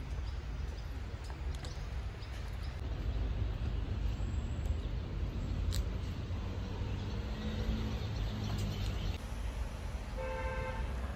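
Steady low outdoor rumble, with one short pitched toot, like a horn, about ten seconds in.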